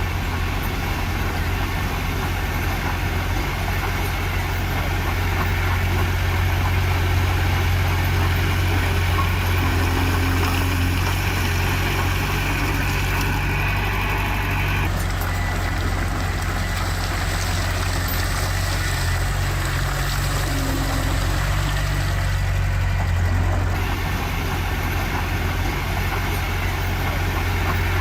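Heavy diesel engine of earthmoving machinery running steadily with a low, even drone.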